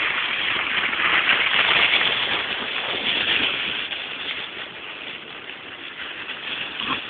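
Thick layer of dry fallen leaves rustling and crunching underfoot as someone moves quickly through them; the rustling is loudest in the first few seconds and fades toward the end.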